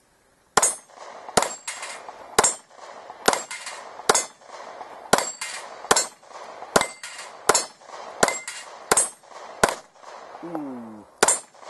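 A fast string of about a dozen pistol shots, spaced a half second to a second apart, with the bullets ringing on steel targets: a steel silhouette and the 8-inch plates of a plate rack.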